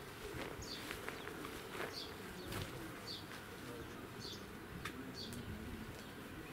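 A small bird chirping over and over: short, high, falling notes about once a second, over a low, steady outdoor background.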